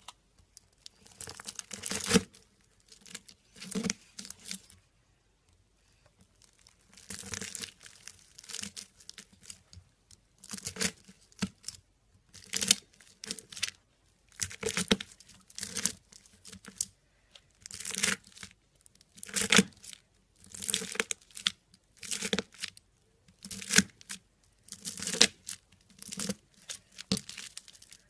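A knife cutting again and again through green slime packed with clear plastic beads, each cut a short crackling crunch, about one every second or two, with a pause of a couple of seconds early in the sequence.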